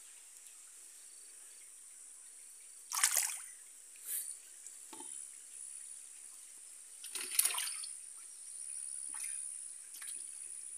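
Small splashes and trickling water at a reservoir's surface as young tilapia are let go into it. The two loudest splashes come about three seconds in and about seven seconds in, with a few smaller ones between and after.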